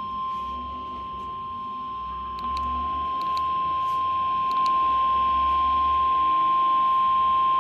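NOAA Weather Radio warning alarm tone, a single steady tone of about 1050 Hz heard through a weather radio receiver with static hiss and a few faint clicks. It gets louder in two steps, about two and a half and four and a half seconds in. The tone signals that a warning, here a flash flood warning, is about to be read.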